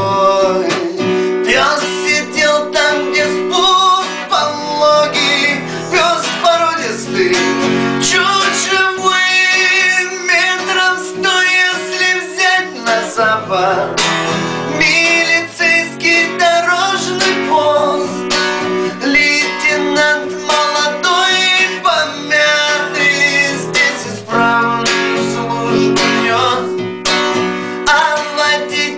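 A man singing in Russian while strumming an acoustic guitar.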